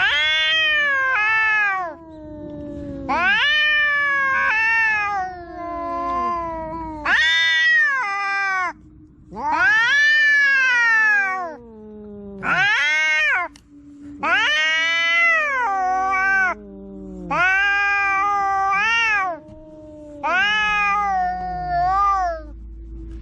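Cats caterwauling in a fight standoff: a run of about ten long, wavering yowls, one every two seconds or so, with a faint steady low tone underneath.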